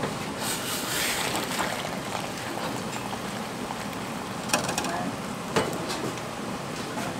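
Hot broth pouring from a large metal pot into a stainless-steel fish-cake tray, splashing steadily, with two sharp clicks about four and a half and five and a half seconds in.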